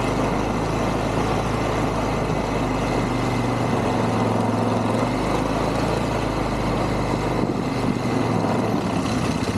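ATV (quad) engine running steadily as the machine rides along, its note shifting slightly about three quarters of the way through.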